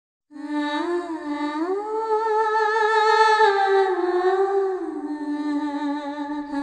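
Background music starts just after the opening: a slow melody that glides smoothly in pitch, over a held low note.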